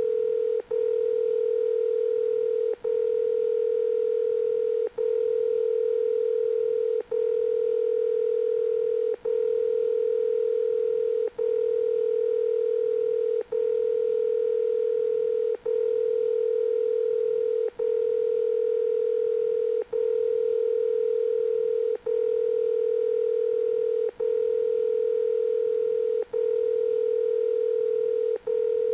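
Telephone dial tone: a steady mid-pitched tone held almost continuously, broken by a very short gap about every two seconds.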